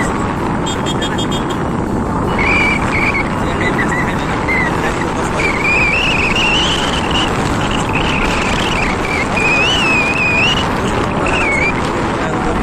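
Loud, steady street and traffic noise, with a thin high tone over it that wavers up and down in short stretches.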